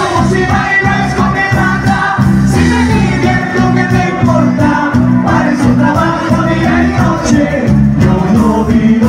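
Live band playing a Latin dance tune, a melody over a moving bass line.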